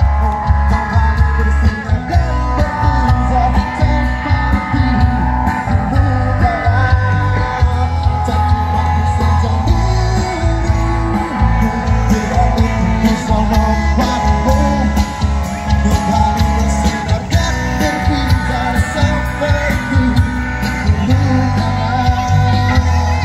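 Band music with singing, played through a line-array PA system of four boxes per wing and heard from about 100 metres away. Heavy, steady bass and a drum beat carry under the voice and guitar.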